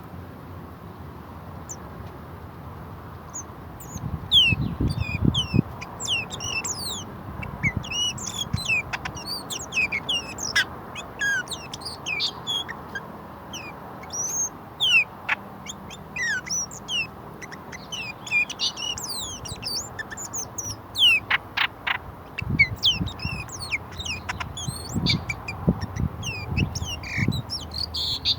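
Several small birds chirping and calling in quick, overlapping short notes, starting a few seconds in and carrying on busily. Low rumbling thumps come through twice, early on and again near the end.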